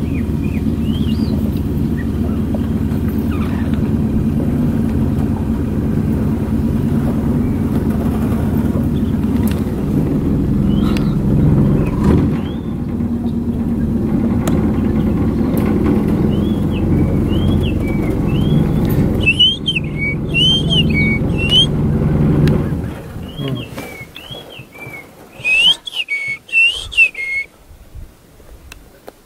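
A vehicle engine idling steadily, cutting out about three-quarters of the way through. A bird repeats a short rising-and-falling whistle, more often and louder in the second half.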